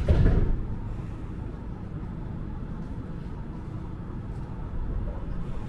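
Interior of a Montreal metro Azur rubber-tyred train: a brief loud thump in the first half-second, then the car's steady low rumble as the train runs.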